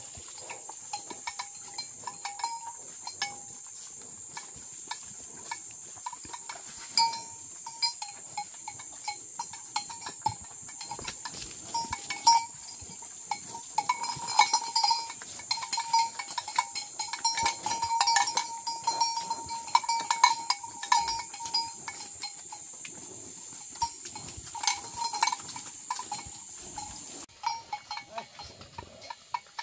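A cattle bell clanking irregularly as the cattle jostle and feed at a trough, busiest in the middle. Behind it a steady high-pitched insect drone, which cuts off suddenly near the end.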